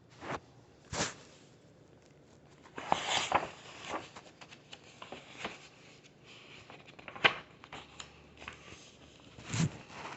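Light rustling and handling of a picture book's paper pages, most likely a page being turned, in a string of short soft clicks with a longer rustle about three seconds in.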